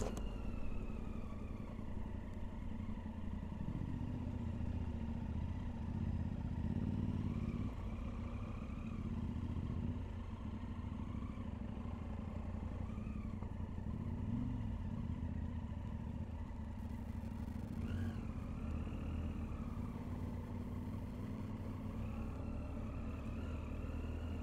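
Triumph Tiger 800's three-cylinder engine running under way, heard through a helmet camera, its note rising and falling several times with the throttle.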